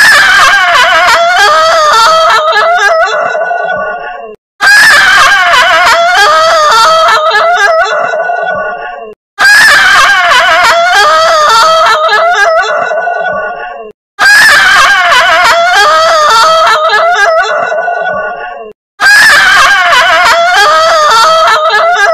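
A heavily distorted logo sound effect looped five times, about every four and a half seconds: each pass starts abruptly loud with a wavering, squawk-like cry and trails off, with a short gap before the next.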